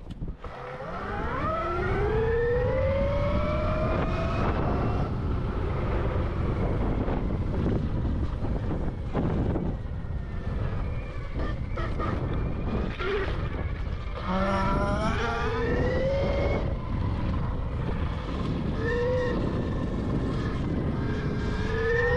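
Electric dirt bike motors whining up in pitch as the bikes accelerate, first about a second in and again several times later, over a steady rumble of wind and tyres on the microphone.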